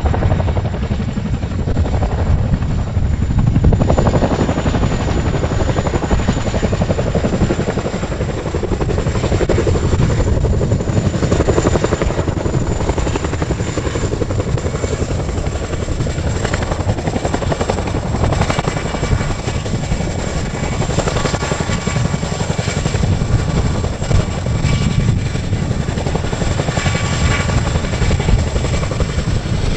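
RAF Boeing CH-47 Chinook tandem-rotor helicopter flying slowly with a heavy load slung under its centre hook: deep, steady rotor noise with a constant high turbine whine over it.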